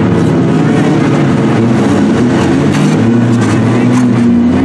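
Several demolition derby cars' engines running loud together, their pitches rising and falling as the drivers rev and ram one another.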